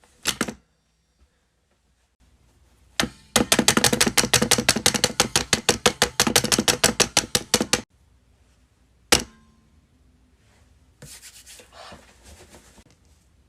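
A plastic bank card tapped against a card-payment terminal: a couple of single sharp taps, then a rapid run of taps lasting about four and a half seconds, one more tap near the middle, and a soft scraping near the end.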